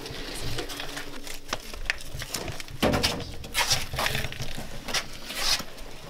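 Shuffling and scuffing of shoes, clothing and hands against stone as people squeeze through a low crawl space, with knocks from the camera being bumped and handled. The scuffs come irregularly and are loudest around the middle.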